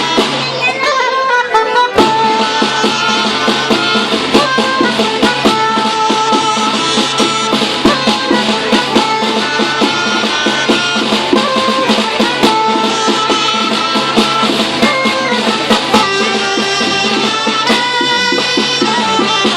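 A small ensemble plays an instrumental piece. Melody lines run over a steady low drone, and drums or percussion keep a beat. The texture thins briefly about a second in, then the full band comes back in.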